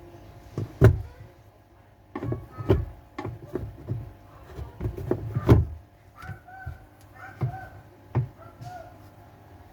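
A series of irregular knocks and thuds, about nine in all, with a few short high squeaks between them in the second half over a faint steady hum.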